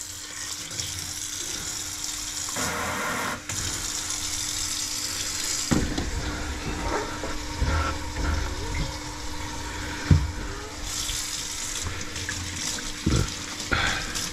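Hot water running from a kitchen faucet into the sink and down a freshly cleared drain, the soapy water cutting the grease as the drain flows. A few sharp knocks sound against the sink partway through.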